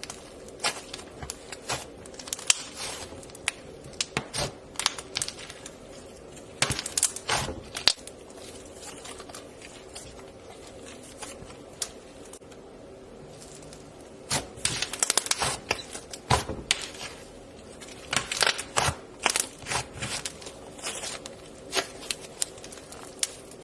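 Slime being squeezed and stretched by hand, making irregular sticky clicks and crackling pops in clusters, with a quieter spell about halfway through.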